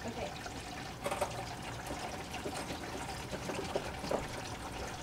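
Used engine oil pouring in a steady stream from the drain hole of a 2017 Ram 1500's oil pan into a drain pan fitted with a splash guard.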